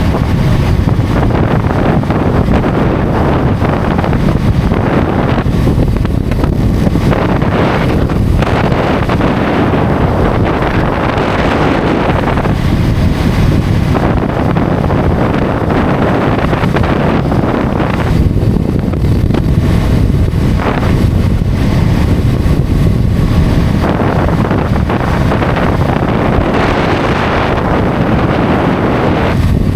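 Wind buffeting the microphone of a motorcycle rider's camera at highway speed, a loud, steady rush that swells and drops every few seconds, with the motorcycle's running and road noise underneath.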